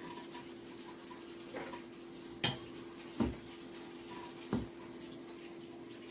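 Tap water running steadily with a faint steady hum, while hand-mixing dough in a stainless steel bowl gives three short knocks, the first a sharp clink about two and a half seconds in.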